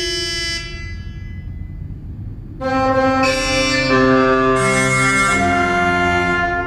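Vintage car and truck horns sounding a tune in a horn concert. A held chord of horns fades out with a long echoing tail, then about two and a half seconds in new horn notes of different pitches come in one after another and overlap into chords.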